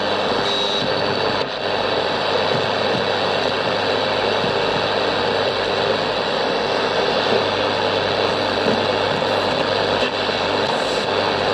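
Steady shortwave static hissing from the speaker of a Sony CFM-155S radio cassette recorder tuned to its SW2 shortwave band.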